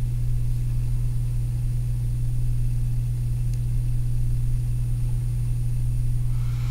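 Steady low hum, unchanging in pitch and level.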